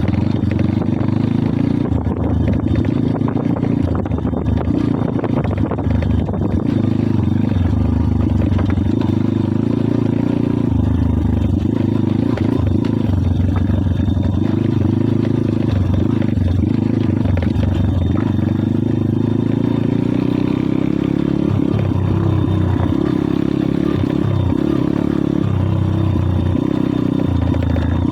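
Kayo pit bike's single-cylinder four-stroke engine running while riding, the revs rising and falling with the throttle.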